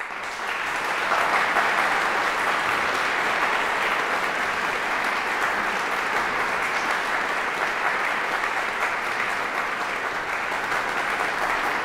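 Audience applause that breaks out all at once after silence and holds steady as a dense clapping.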